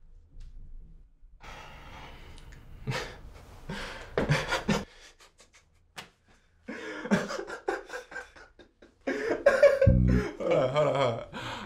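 A person's voice in short, broken bursts without clear words, with a strong low sound coming in about ten seconds in.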